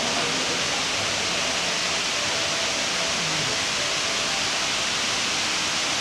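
Steady rushing of a tall indoor waterfall, water cascading in a continuous sheet down a multi-storey wall, with faint voices under it.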